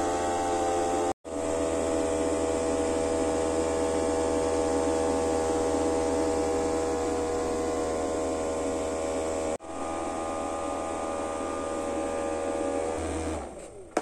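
Small electric motor spinning the fan of a cardboard air-cooler model: a steady electric hum and whine. It drops out briefly twice, and near the end it winds down with a falling pitch.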